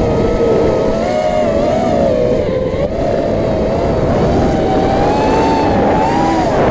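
Motor and propeller of a low-flying radio-controlled aircraft, heard from its onboard camera: a steady whine whose pitch wavers up and down and climbs a little near the end, over a dense low rushing noise.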